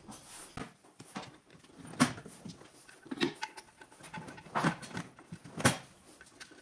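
Irregular light knocks, clicks and rustling from gloved hands handling parts on the front of an engine block, with two sharper knocks about two seconds in and near the end.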